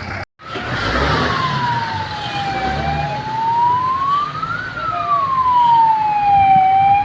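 Ambulance siren wailing, its pitch slowly rising and falling about every four seconds, over the noise of road traffic. It cuts in after a brief dropout near the start.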